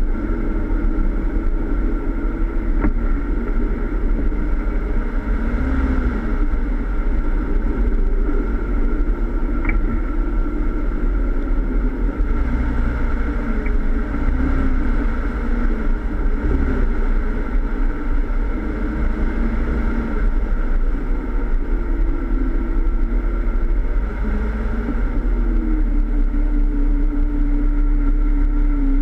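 Jeep Wrangler engine running at crawling speed off-road, its pitch rising and falling gently as the throttle is worked, over a steady low rumble. Near the end it settles to an even tone.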